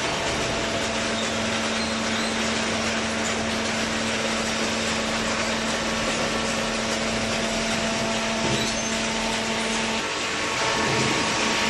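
Vertical hydraulic baler running: its motor and hydraulic pump make a steady mechanical hum with a constant low tone, which breaks briefly about ten seconds in and then picks up again.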